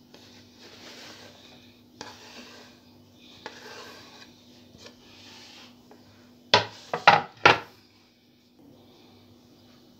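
Diced cucumber and chopped greens going into a metal pan of bulgur, with soft rustling and scraping, then three sharp knocks of kitchenware about two-thirds of the way through. A faint steady hum underneath.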